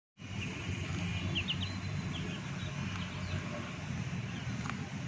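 A few short, high bird chirps, the densest cluster about a second and a half in, over a steady low rumble.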